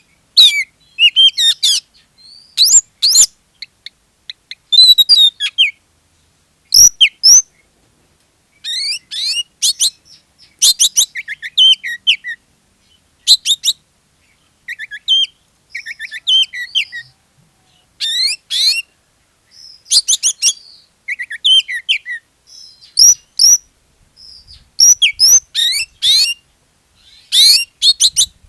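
Oriental magpie-robin (kacer) singing hard: rapid, high, varied whistled phrases of half a second to a second or so, separated by short pauses.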